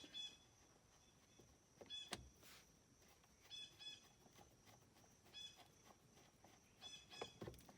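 Near silence, broken by a few faint short clicks and high chirps every second or two.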